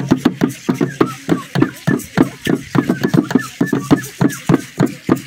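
Ceremonial dance drumming: drums struck in a quick, even beat with rattles shaking along.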